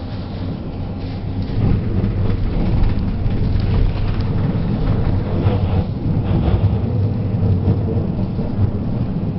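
Tatra T4D-M tram running along the track, heard from inside: a heavy low rumble of wheels and running gear with irregular rattling and clatter. It grows louder about one and a half seconds in.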